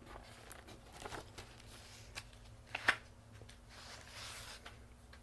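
Pages of a picture book being handled and turned: soft paper rustles and a few light taps, the sharpest about three seconds in.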